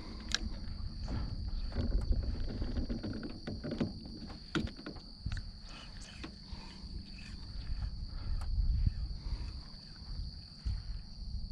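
Insects droning steadily at one high pitch, over an uneven low rumble, with scattered sharp clicks and knocks.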